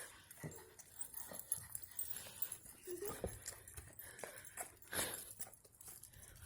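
A group of dogs being walked: faint scattered taps and clicks as they move, with one short dog whimper about three seconds in.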